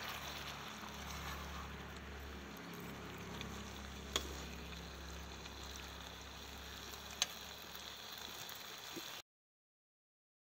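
Sliced potatoes deep-frying as chips in hot oil in a kadai, a faint, steady sizzle. Two sharp clicks come about four and seven seconds in, and the sound cuts to dead silence near the end.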